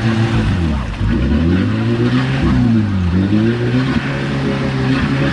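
Modified off-road 4x4's engine revving, its pitch dropping and rising twice as the throttle is worked.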